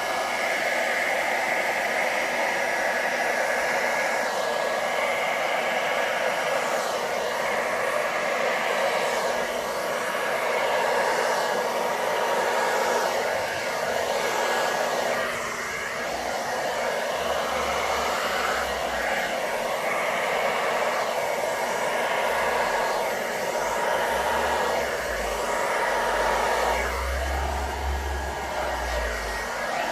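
Small hairdryer blowing steadily, a continuous airy whoosh with a faint motor whine, its loudness wavering a little as it is moved about.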